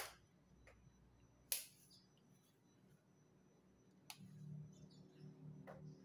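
A few sharp clicks and taps of a screwdriver and metal parts on an opened laptop's chassis and heatsink, the loudest about a second and a half in. A faint low hum joins from about four seconds in.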